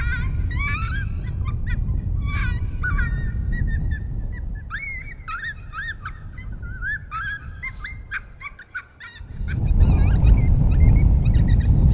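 A chorus of coyote vocals: rapid yips, barks and short wavering howls, many calls overlapping. The calls thin out about eight seconds in, and a loud low rumble takes over near the end.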